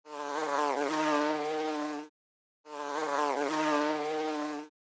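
Bumblebee buzzing, heard twice: two steady buzzes of about two seconds each with a short pause between them.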